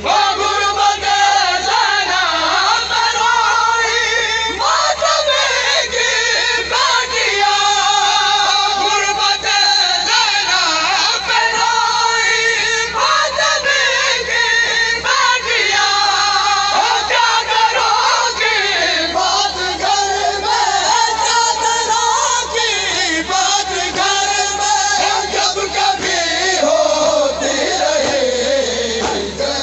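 A devotional recitation sung continuously in one voice's melodic line, with long held notes that bend between phrases.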